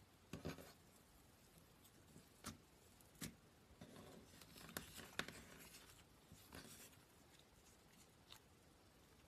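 Slime being handled, pressed and poked by hand: faint, scattered sticky clicks and crackles at irregular intervals, thickest about halfway through.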